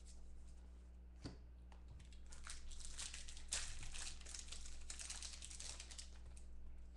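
Foil wrapper of a trading-card pack crinkling in the hands: a dense crackle lasting about four seconds, starting about two seconds in, with a single tap a second before it.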